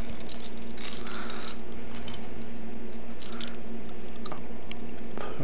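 Wet mouth sounds of gum being chewed close to the microphone, with a few small clicks of hard plastic puzzle pieces being sorted on a table, over a low steady hum.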